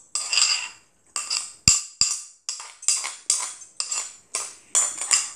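Metal spoon scraping and clinking against a bowl, about two strokes a second, each stroke ringing briefly, with one sharper knock near the middle. The spoon is scooping up the last of the bibimbap from a nearly empty bowl.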